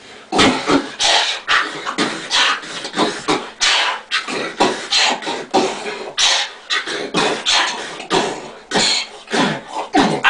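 Three people beatboxing together with hands cupped over their mouths: a steady rhythmic beat of mouth percussion that starts about a third of a second in.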